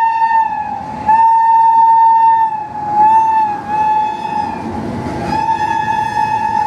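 WAG-9 electric locomotive's horn sounding in long steady blasts, cut briefly about a second in, its pitch wavering and dipping slightly as the engine passes. Beneath it, the rumble of the BCNA covered wagons rolling by grows from the middle on.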